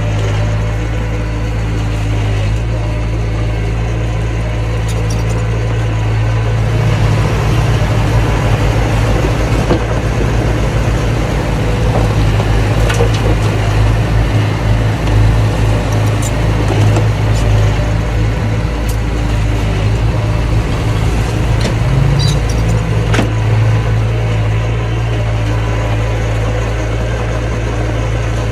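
Mini bulldozer's diesel engine running steadily. From about seven seconds in it pulls harder and louder with a pulsing beat for most of the stretch, then settles back near the end, with occasional sharp metallic clanks.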